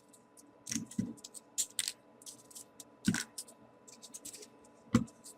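Folded paper pieces rustling and clicking as they are handled and pushed into a 3D origami model, with a few soft knocks, the clearest about three seconds in and near the end.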